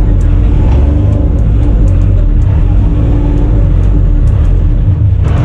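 Enclosed lifeboat's diesel engine running steadily under way, loud inside the cabin, with a deep hum and a steady tone above it.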